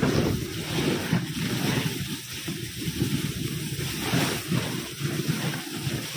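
Wind buffeting a phone's microphone during a sledge ride over snow: a rough, uneven rush mixed with the noise of the sledge sliding along.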